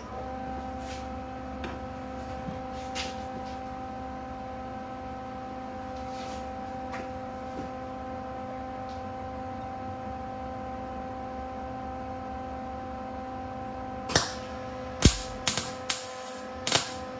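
MIG welder humming steadily after being switched on. In the last three seconds the arc is struck in about five short, sharp crackling bursts rather than a continuous weld, with the wire speed turned down.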